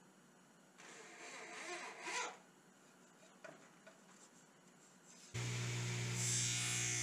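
A corded electric drill runs briefly, speeding up as it bores into a wooden board. About five seconds in, a table saw comes in loud and steady as a board is fed along its blade.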